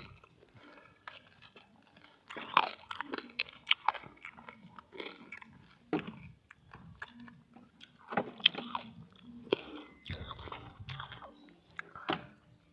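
A person biting and chewing candy close to the microphone, with clusters of crisp crunches every few seconds and quieter chewing in between.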